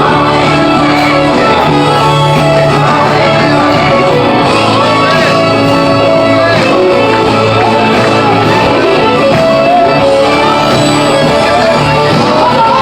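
Loud live worship music, with sustained chords held under voices singing and shouting.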